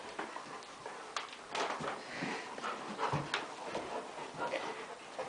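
Two puppies playing together, with short, irregular dog sounds and scuffles throughout.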